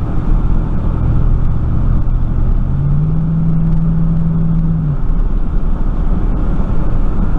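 Engine and road noise of a 1999 Chevrolet pickup being driven, heard from inside the cab. A steady engine tone steps up a little about three seconds in, holds for about two seconds, then drops back.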